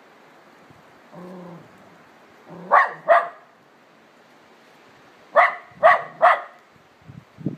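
Labradoodle puppy barking at a leaf on the snow that she is afraid of. Two sharp barks come close together about three seconds in, then three more about two and a half seconds later.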